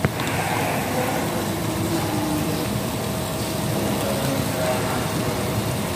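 Steady hiss of meat sizzling on a round grill pan over a tabletop gas burner, with background voices murmuring and a brief knock right at the start.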